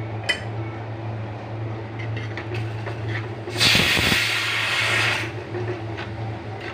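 A loud burst of hissing lasting about a second and a half, starting about halfway through, over a steady low hum.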